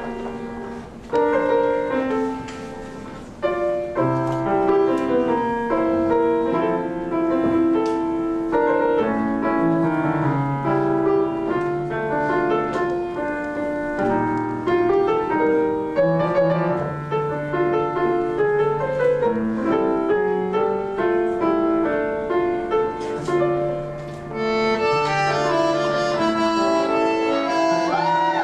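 Solo piano playing a tango vals in waltz time. About 24 seconds in, two bandoneons come in with held chords over the piano.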